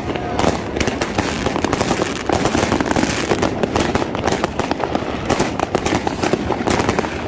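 Many fireworks and firecrackers going off at once: a continuous run of sharp, overlapping bangs and crackles.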